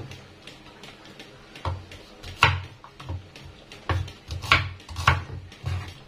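Stone pestle pounding and grinding spice paste in a stone mortar (ulekan in a cobek): a string of dull, irregular knocks, about one every half second to a second.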